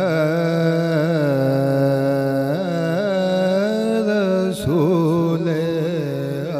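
A man's voice singing the long, drawn-out opening phrase of a naat with wavering ornaments on held notes and no clear words, breaking briefly a little past halfway.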